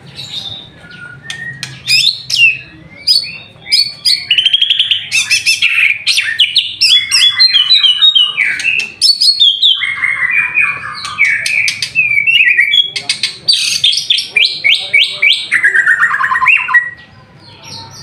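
White-rumped shama (murai batu) in full song: a loud, varied run of rapid repeated notes and trills, with some phrases sliding down in pitch, starting about two seconds in.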